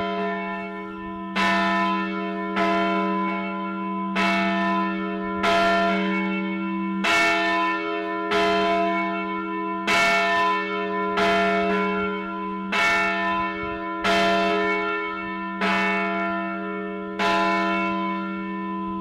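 A church bell tolling at a slow, even pace, about one stroke every second and a half, about a dozen strokes in all. Each stroke rings on into the next, so a low hum carries between them.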